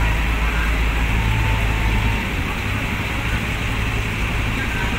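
Diesel engine of a heavy cargo truck running at low revs, a deep steady drone that eases off briefly about two seconds in, over steady background noise.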